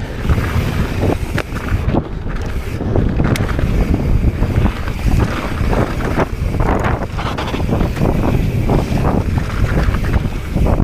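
Wind buffeting the camera microphone at speed on a mountain bike, over the rattle and knocks of the bike and its tyres running across gravel and loose stones on a rocky dirt trail.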